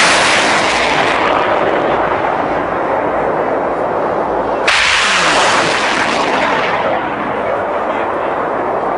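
BM-27 Uragan multiple rocket launcher firing 220 mm rockets. The roar of one launch fades over a few seconds, then a second launch strikes sharply about five seconds in and fades the same way.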